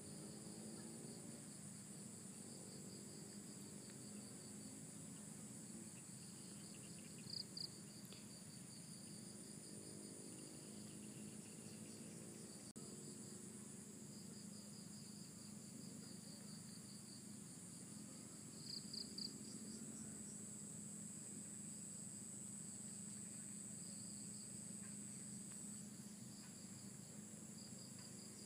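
Faint insect chorus: steady high-pitched trilling with a pulsing trill beneath it, briefly louder twice, about seven seconds in and again near nineteen seconds.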